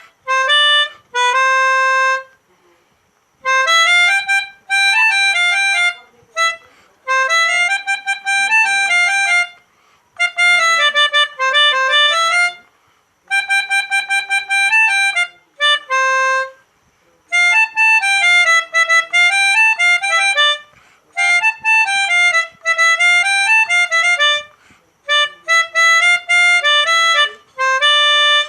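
Pianika (keyboard melodica) playing telolet bus-horn tunes: short phrases of reedy notes, each one to three seconds long, with brief pauses between them.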